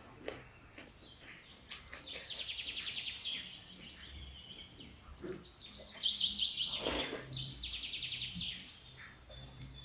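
A songbird singing three runs of fast, evenly repeated high trilled notes, the longest about a second and a half, among short chirps, with scattered small clicks and knocks and one sharper knock about seven seconds in.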